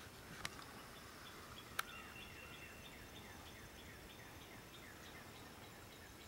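A small bird calling faintly in a rapid series of short falling chirps, about three a second, from about two seconds in. Two sharp clicks stand out, the louder one just before the chirps begin.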